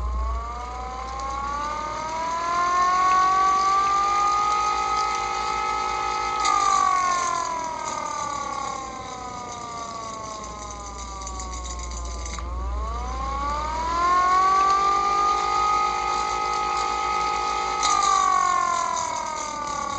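Hand-crank siren wound up twice: its wail of several tones at once rises in pitch over about six seconds, holds briefly, then slides down for about six seconds before a second wind-up starts about halfway through and begins to fall near the end.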